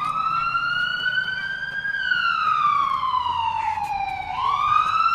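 Wailing siren, its pitch rising for about two seconds, falling for about two, then rising again near the end.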